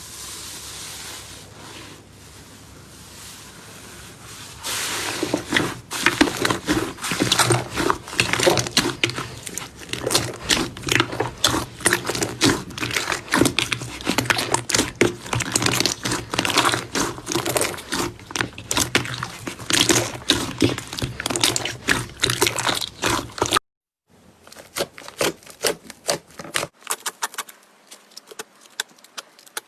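Slime being squished and pressed by hand, starting as a soft hiss and then turning into a dense run of sticky crackles and pops. It cuts off abruptly about two-thirds of the way through, and a sparser run of crackles follows.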